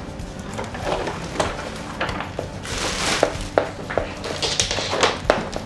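Plastic wrapping rustling and crinkling as it is pulled off a trolling motor, with several sharp clicks and knocks of styrofoam packing and the motor's plastic parts being handled.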